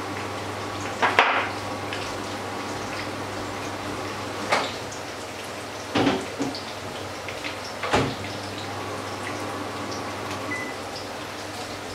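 Fritters frying in a pan of hot oil: a steady sizzle over a low hum, with a few sharp pops and cracks now and then.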